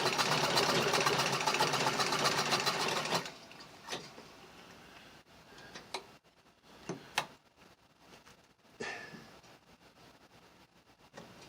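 1893 Singer Model 27 treadle sewing machine, a vibrating-shuttle machine, stitching at speed with a rapid, even clatter that stops abruptly about three seconds in. A few light clicks and knocks follow.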